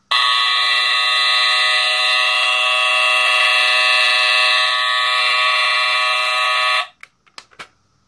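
Honeywell TC49A smoke detector's Kobishi CLB-23 mechanical squealer horn sounding its alarm, set off by candle smoke reaching the ionization sensor: one loud, steady, shrill tone that starts abruptly and cuts off suddenly about seven seconds in, followed by a few light clicks.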